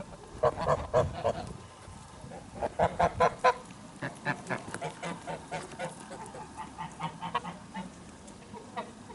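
Flock of white domestic geese honking: short calls in quick runs about half a second in and again around three seconds in, then softer scattered calls.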